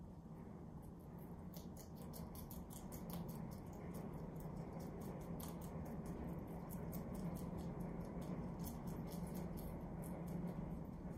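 Rabbits chewing fresh leafy greens (cilantro and napa cabbage): rapid, crisp crunching clicks that start about a second and a half in and carry on steadily.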